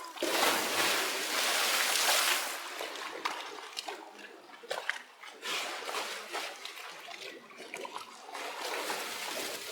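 Bear cubs splashing in a pool of water: a big splash and slosh in the first couple of seconds, then smaller splashes and drips.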